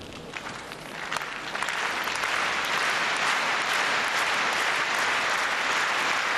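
Large arena crowd applauding, swelling over the first couple of seconds into steady, loud applause.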